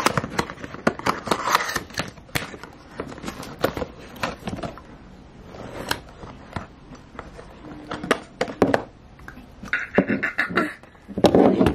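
Cardboard perfume gift box being handled and opened at close range: irregular clicks, taps and scrapes of the packaging, ending with the glass bottle being slid out, a denser cluster of handling noise near the end.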